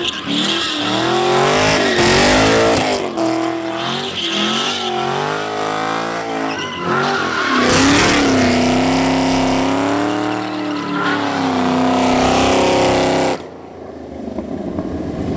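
Cammed Chevrolet Camaro's LS V8 revving hard, its pitch swinging up and down as the rear tyres spin and squeal in a smoky burnout and donuts. About 13 seconds in the revs drop off sharply and it goes much quieter.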